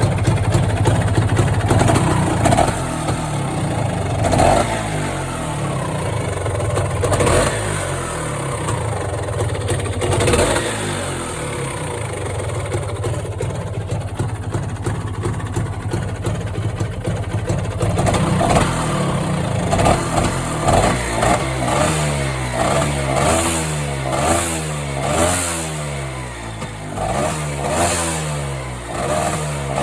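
Old Vespa PX200 scooter's single-cylinder two-stroke engine running on its first test run after starting. It is revved with the throttle a few times, then in the second half in quick repeated blips about once a second.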